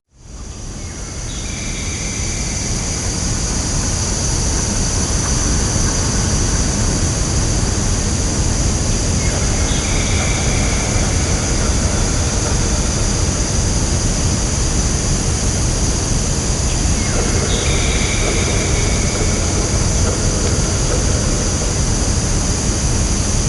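Woodland ambience: a steady rushing noise with a heavy low rumble and a constant high hiss, fading in over the first few seconds. Short higher-pitched sounds recur about every eight seconds.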